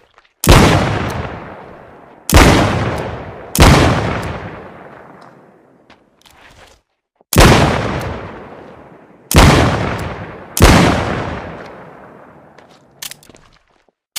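Six shots from a Smith & Wesson Model 13 .357 Magnum revolver, fired in an uneven rhythm, each with a long echoing decay. A few light clicks follow near the end.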